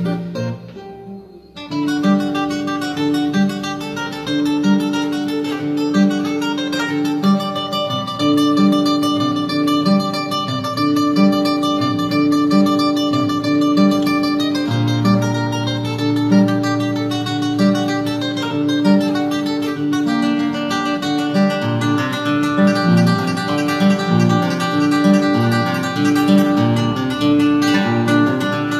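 Solo nylon-string classical guitar playing in the Ayacucho guitar style: a steady repeated bass note under a plucked treble melody. It resumes after a brief lull at the start.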